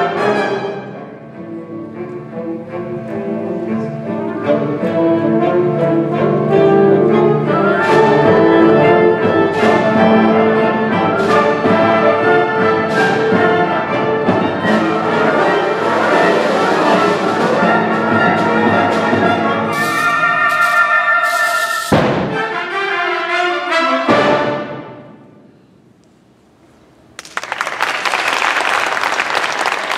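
A high school wind ensemble playing the loud closing bars of a concert-band piece, brass to the fore, punctuated by sharp percussion strokes; the final stroke about three-quarters of the way through rings away into a brief hush. Audience applause breaks out near the end.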